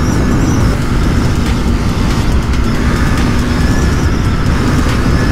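KTM RC 390's single-cylinder engine running steadily at highway cruising speed, under heavy wind rush on the microphone.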